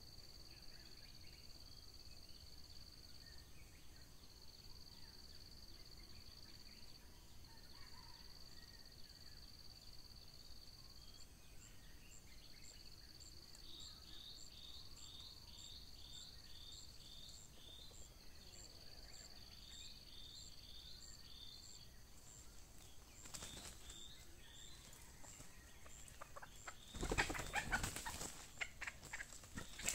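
Red junglefowl wings flapping hard for about a second and a half near the end, with a shorter flutter a few seconds before, as a wild hen comes to the decoy hen. Before that, insects drone in long high-pitched stretches with brief gaps.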